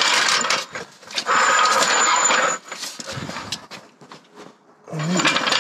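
Metal trolley jack scraping and clattering as it is wheeled over brick paving and set under the car's sill, with a run of knocks and clicks after it.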